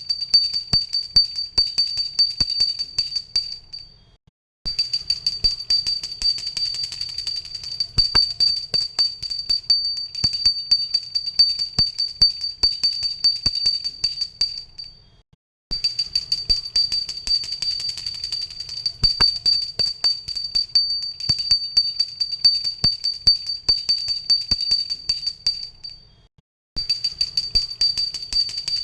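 Hindu pooja hand bell rung rapidly and continuously, its clapper striking many times a second over a high, steady ring. The ringing stops briefly three times, about 4, 15 and 26 seconds in, and starts again each time.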